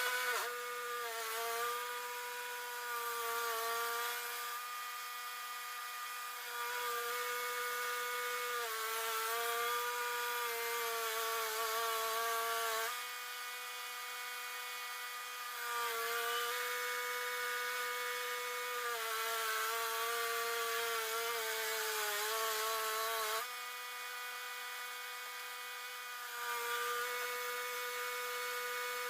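Wood-Mizer LT10 bandsaw mill running and sawing black walnut: a steady motor whine whose pitch sags and wavers as the blade works through the cut, over a hiss of sawing. The sound drops a little in level three times and then picks up again.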